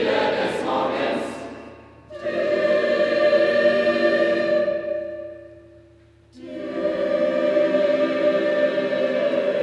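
Choir singing sustained chords without accompaniment: one chord fades out, a new held chord enters suddenly about two seconds in and fades away, and another enters about six seconds in.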